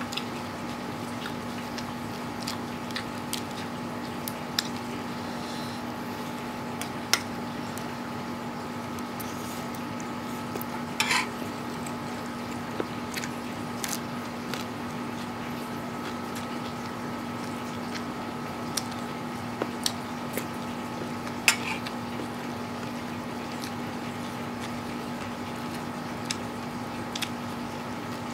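Close-up eating sounds: scattered wet mouth clicks and smacks of chewing instant noodles with raw papaya leaves, a few louder than the rest, over a steady background hum.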